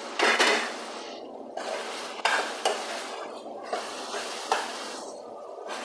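Chicken and vegetables sizzling in a pan while being stirred, with the stirring spoon knocking and scraping against the pan several times.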